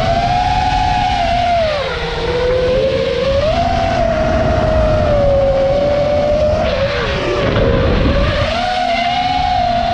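Motors and propellers of a 5-inch Nazgul5 FPV quadcopter on a 6S battery whining, the pitch rising and falling as the throttle changes, with wind rumble on the onboard camera's microphone.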